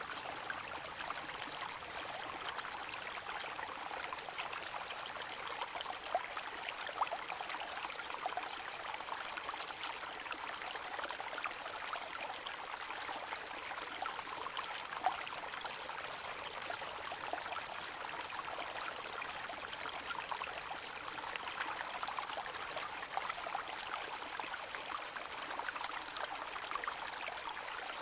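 A small brook trickling and babbling steadily over stones, an even run of water with many small splashes and gurgles.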